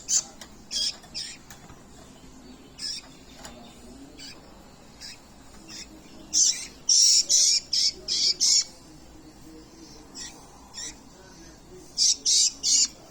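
Nestling birds' begging calls while being hand-fed: repeated short, shrill squawks, coming in a dense run about halfway through and again near the end.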